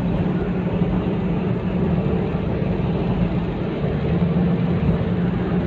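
Steady hum of a motor vehicle's engine with continuous road noise, an even drone with no sudden changes.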